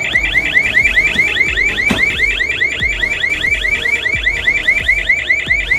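Welding habitat's electronic pressure alarm sounding, a fast train of rising chirps, about eight a second. A single knock about two seconds in.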